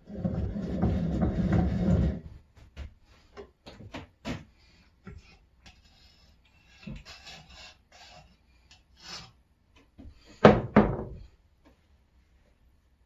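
An old rusty bench vise's sliding jaw being worked in and out, metal scraping for about two seconds, then scattered knocks and clunks. The loudest clunk comes about ten and a half seconds in. The jaw is still stiff and is being worn in.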